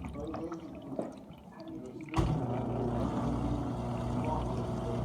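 GE dishwasher running: water sloshing and gurgling, then about two seconds in a motor starts with a sudden, steady hum.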